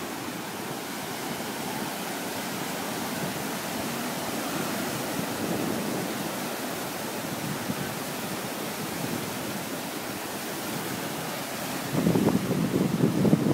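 Ocean surf breaking and washing over a rocky shoreline, a steady hiss of waves. About twelve seconds in, wind starts buffeting the microphone in louder gusts.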